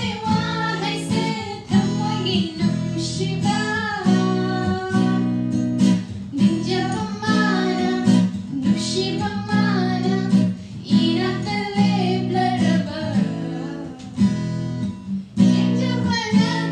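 Background song with acoustic guitar strumming and a singing voice.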